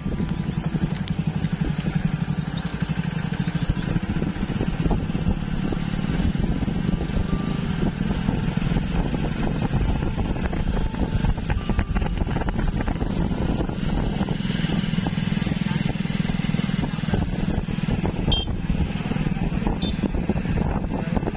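Motorcycle engines running steadily on the move, a continuous low, pulsing engine note.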